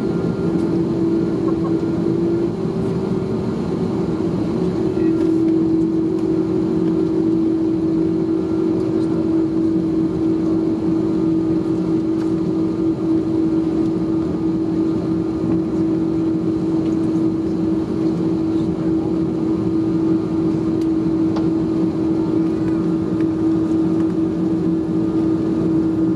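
Cabin noise of an Airbus A330-303 taxiing on its General Electric CF6 turbofans, heard inside the cabin: a steady drone with a constant humming tone.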